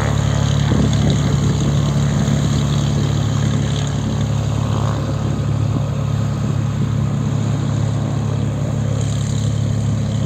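Cessna 400 Corvallis TT's turbocharged six-cylinder engine and propeller running steadily at low taxi power, a deep, even drone.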